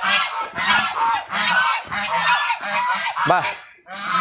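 A flock of white domestic geese honking, many overlapping calls one after another without a break.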